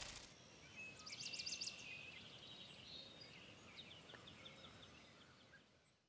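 Faint outdoor ambience with small birds chirping and trilling: a quick trill about a second in and a run of short notes near four seconds, all fading out at the end.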